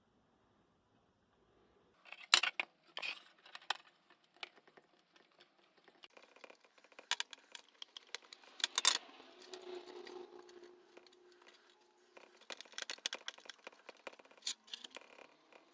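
Hands peeling and splitting a strip of caulking putty: scattered sharp clicks and crackles after about two seconds of near silence, with a faint steady hum for a few seconds midway.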